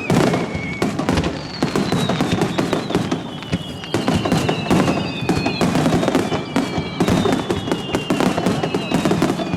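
Aerial fireworks bursting overhead in a dense, continuous crackle of popping and sparking shells, with a few thin high tones gliding slowly down in pitch.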